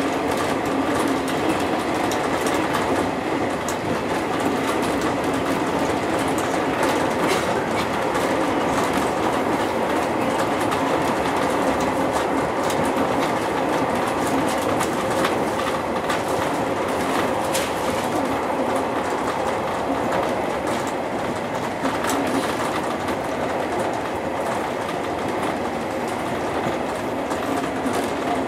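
JR East 201 series electric commuter train running at speed, heard from the driver's cab: a steady rumble of wheels on rail with a few faint clicks.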